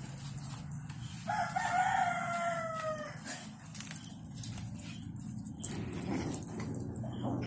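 A rooster crowing once: a call of about two seconds starting a little over a second in, choppy at first and then a long note that sags in pitch at its end.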